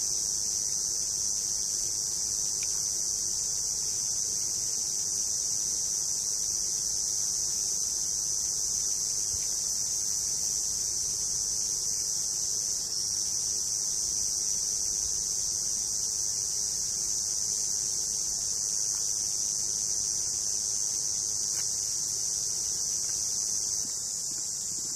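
Steady, dense chorus of summer insects, a continuous high-pitched shrill with no pauses, slightly quieter near the end.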